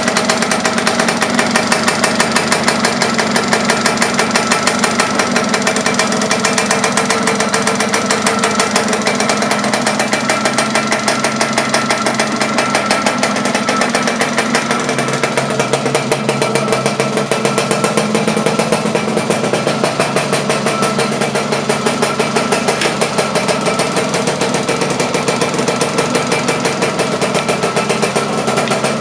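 Freshly rebuilt Zündapp KS 125 two-stroke single-cylinder engine of a Laverda LB 125 motorcycle, running steadily with a fast, even pulse of firing strokes.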